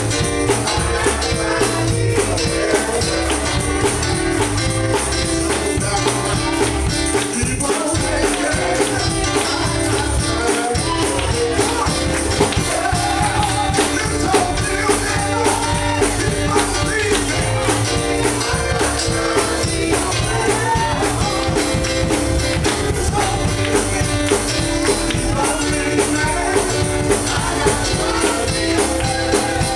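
Live gospel music: a man singing lead into a microphone over a band accompaniment with a steady beat.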